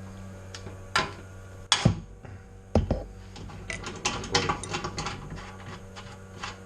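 Metal clinks and knocks of an adjustable wrench working a dryer drum wheel's stud, with a run of quick small clicks from the middle onward, over a steady low hum.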